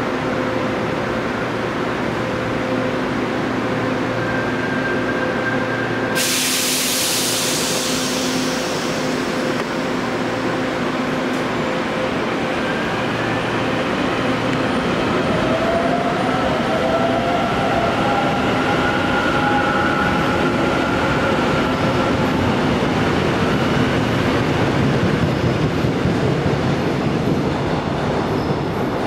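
Korail commuter electric train standing at the platform with a steady hum, then a sudden burst of compressed-air hiss about six seconds in. From about thirteen seconds its traction motors whine, rising in pitch as the train pulls away.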